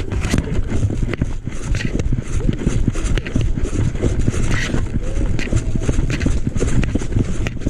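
Footsteps and gear rustle from someone on the move, a quick, irregular run of low thuds with scattered clicks.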